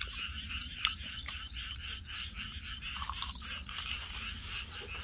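A chorus of frogs calling steadily in quick, repeated pulses, with a person biting into and chewing grilled pork belly about three seconds in.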